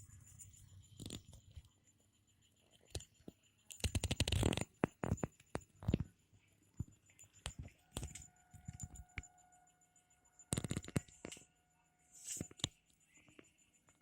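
Stepper motors of a home-built mini 3D printer, made from salvaged parts, moving the print head in short bursts during printing: irregular clicks and rattles, densest about four seconds in and again near eleven seconds, with a brief steady whine a little past eight seconds.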